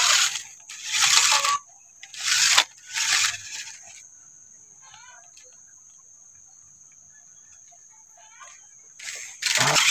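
Electric RC crawler truck driven in short bursts of throttle on a steep dirt bank: motor and gears whining, tyres spinning and scrabbling on loose soil, about four bursts in the first four seconds. It then sits quiet for about five seconds before another burst near the end.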